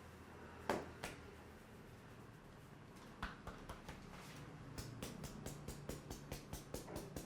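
Head massage by hand: two sharp snaps about a second in, then, from about three seconds in, a run of even hand strikes on the head that gets quicker and louder.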